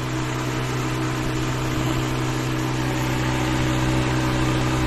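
Honda Civic's electric radiator fan running with the ignition on and the engine off: a steady hum with the rush of air. The fan is wired direct at the thermoswitch socket, so it runs continuously instead of switching on and off with coolant temperature.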